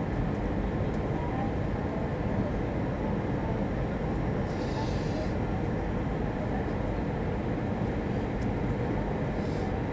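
Steady cabin noise of an Airbus A320 on final approach: the engines and airflow running as a low, even rumble, with a brief hiss about halfway through.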